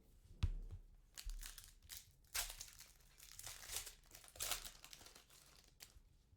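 Trading cards and their plastic packaging handled by hand: a sharp tap about half a second in, then several bouts of crinkling and rustling.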